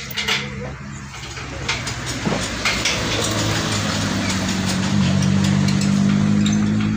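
A diesel engine speeding up over a few seconds to a steady, louder run, loudest about two-thirds of the way through. A few sharp knocks come in the first couple of seconds.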